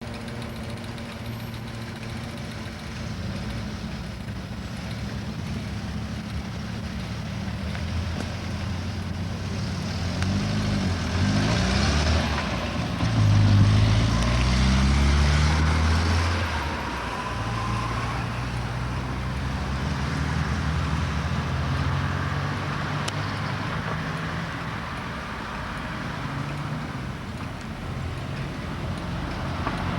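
Engine running with a low drone that rises and falls in pitch, swelling to its loudest about halfway through as the vehicle passes close, then settling to a steadier drone.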